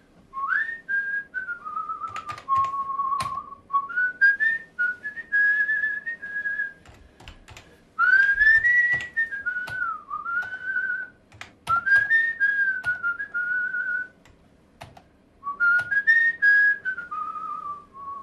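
A man whistling a tune, four phrases of gliding notes with short breaks between them, while computer keyboard keys click alongside.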